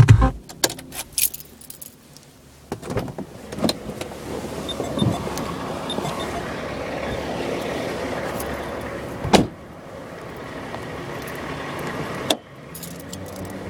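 Getting out of a car: keys jangling and handling clicks, then a car door slammed shut about nine seconds in and another sharp bang near the end, over a steady hum of outdoor traffic.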